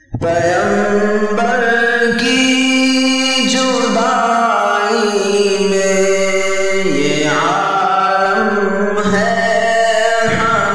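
Wordless a cappella vocal chanting for a naat: layered voices holding long notes that shift pitch every second or two, with no instruments. It starts abruptly out of silence.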